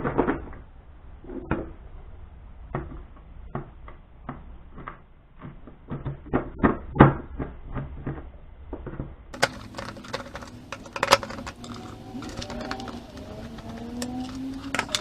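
Irregular clicks and knocks of hard plastic and metal parts being handled as a Scotty rod holder is fitted back into its mount. In the last few seconds the clicks grow sharper, with faint squeaky wavering tones among them.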